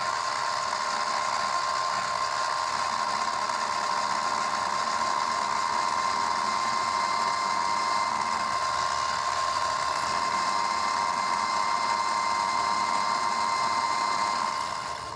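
Grizzly benchtop mini mill running with its end mill cutting a slot in an aluminum clamp: a steady motor whine with a constant high tone over the cutting noise, fading out near the end.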